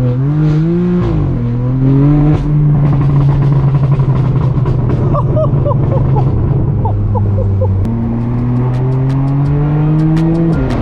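Straight-piped BMW M4 F82's twin-turbo inline-six, heard from inside the cabin, revving up over the first second, dropping back, then holding steady. It climbs again through the revs in the second half before dropping sharply near the end.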